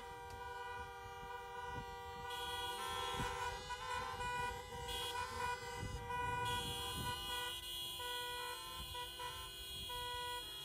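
Many car horns honking at once in protest, several long held blasts overlapping while others start and stop.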